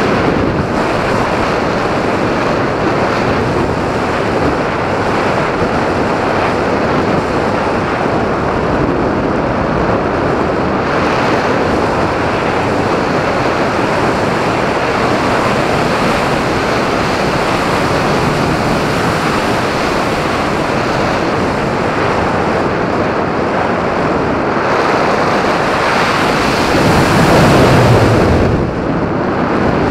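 Steady rush of airflow over the RC glider's onboard camera microphone in flight, swelling louder for a couple of seconds near the end as the glider dives steeply.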